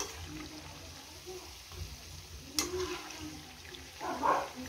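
Kakara pitha deep-frying in hot oil in a kadai, a steady sizzle. A sharp click comes a little past halfway, and near the end a short, louder burst of noise as a ladle goes in to turn the dumplings.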